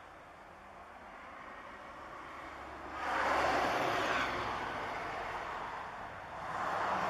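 Road vehicles passing by, a rushing tyre-and-engine noise that swells about three seconds in, fades, and swells again near the end.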